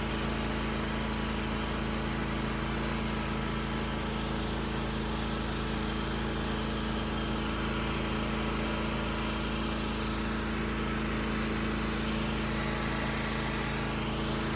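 Cub Cadet lawn tractor engine running steadily at one even pitch as the tractor drives across the lawn.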